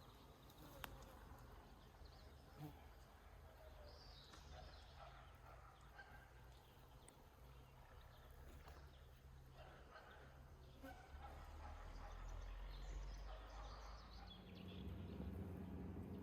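Faint outdoor nature ambience: a low rumble that grows louder near the end, with a few scattered faint high chirps.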